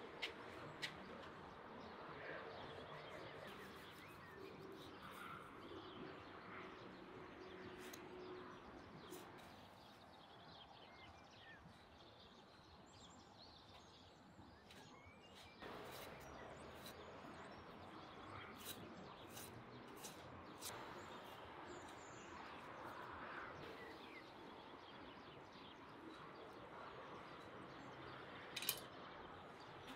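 Faint outdoor quiet with birds chirping now and then, broken by a few small clicks and one sharper knock near the end.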